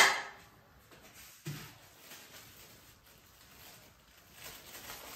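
A ceramic plate clinking as it is set down on a stone countertop, dying away at the very start. Then a quiet kitchen, with one soft knock about a second and a half in and faint rustling of a plastic bag near the end.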